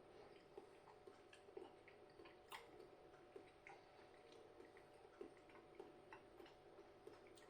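Near silence with faint, irregular soft clicks of a man chewing a mouthful of beef hotpot.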